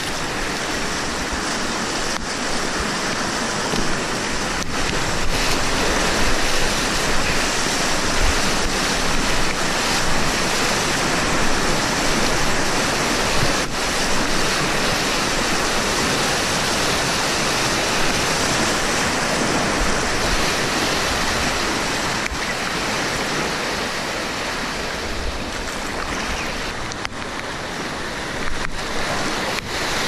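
Flood-swollen river rapids rushing and churning around a whitewater kayak, a loud, steady roar of water heard from right in the boat.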